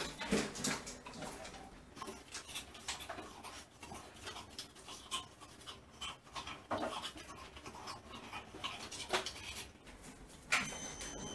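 Staffordshire Bull Terrier panting and sniffing with its nose in the bowl of an iFetch automatic ball launcher, with many small clicks and knocks of the plastic. Near the end the launcher's motor starts with a steady whine.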